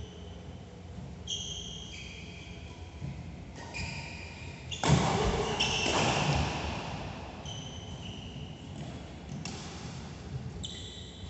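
Badminton shoes squeaking on a synthetic court mat: several short high squeaks as players move, with sharp hits of racket on shuttlecock echoing in a large hall. A louder rush of noise comes about five seconds in.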